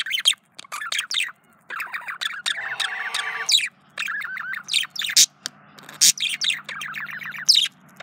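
Male budgerigar warbling its courtship song: fast chattering runs of chirps, squeaky bending notes and sharp clicks, broken by short pauses.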